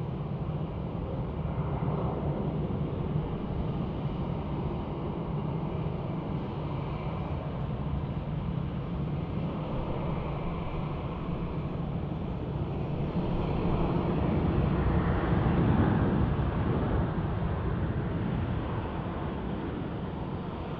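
Boeing 777 freighter's GE90 turbofan engines on landing: a steady engine drone through the approach and touchdown, swelling to its loudest about two-thirds of the way through as reverse thrust is applied on the rollout, then easing back.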